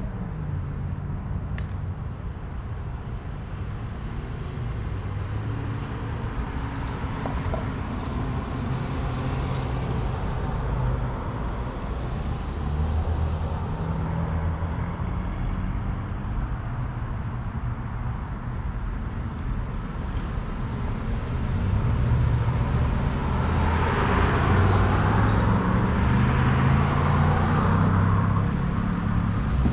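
Wind rushing over the microphone with tyre and road noise while riding a fat-tire electric bike. A steady low rumble that grows louder and brighter for several seconds about two-thirds of the way through.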